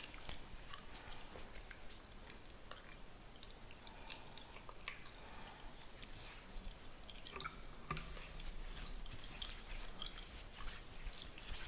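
Close-miked fingernails scratching and rubbing through a beard and over skin: a dense run of small crackling scratches, with one sharp click about five seconds in.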